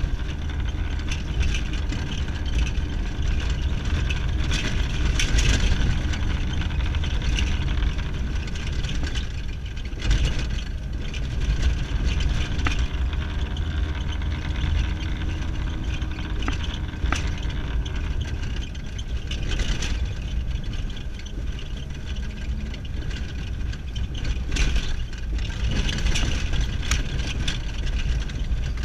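Inside the cabin of a car driving on a rough gravel road: a steady engine and tyre rumble, with occasional knocks and rattles as the car goes over the uneven surface.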